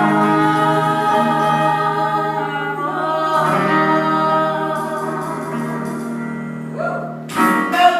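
Singers holding long sustained notes with accompaniment, slowly fading as the song ends, with a short louder sung phrase near the end.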